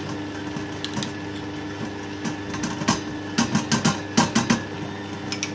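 Stand mixer motor running with a steady hum, while a metal spoon scrapes and taps against the mixer's clear plastic pouring chute, knocking in a spoonful of yogurt: a cluster of quick clicks and knocks about three to four and a half seconds in.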